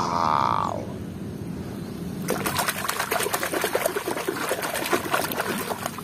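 Hand vigorously sloshing and scrubbing a muddy plastic toy dinosaur in pond water, with choppy splashing that starts about two seconds in.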